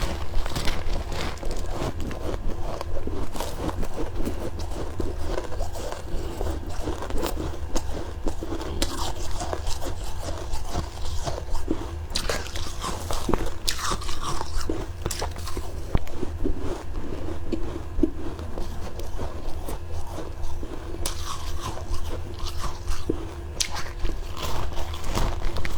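Close-miked biting and chewing of soft freezer frost: continuous irregular crunching and crackling, over a steady low hum.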